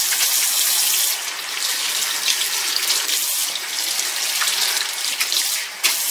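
Kitchen faucet running into a stainless steel sink, splashing over hands rubbed under the stream and then over a dishcloth being rinsed. The steady hiss of the water shifts a few times as hands and cloth break the stream.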